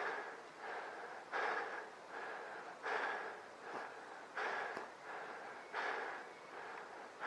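Heavy, quick breathing close to the microphone in an even rhythm, a strong breath about every second and a half with a softer one in between.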